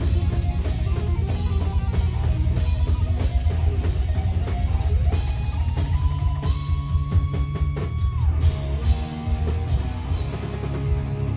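Live rock band playing: electric guitar lead over bass guitar and drum kit. About six seconds in, a lead note is bent up, held for about two seconds, and then slides down.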